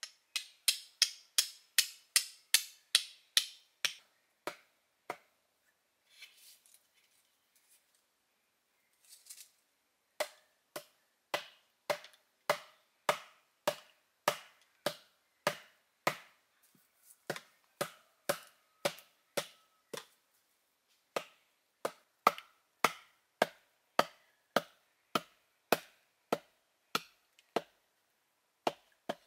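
Steady chopping blows, about two a second: a short run at the start, a pause, then a long run from about a third of the way in, each blow sharp with a brief ringing tail.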